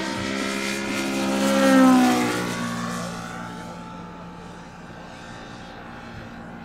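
Radial engine of a large-scale RC Yakovlev Yak-55M aerobatic model flying past. The propeller-driven engine note swells to its loudest about two seconds in, drops in pitch as the plane passes, then fades as it flies away.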